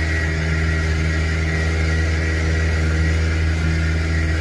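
Boat outboard motor running steadily at cruising speed under way, an even engine drone that holds the same pitch throughout.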